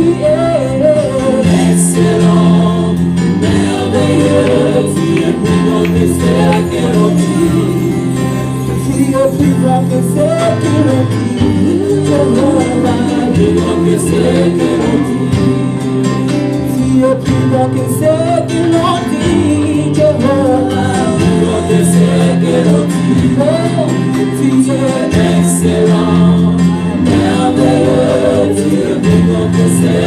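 Church worship team singing a gospel song, a group of voices over instrumental backing with a steady bass line that changes note every second or two.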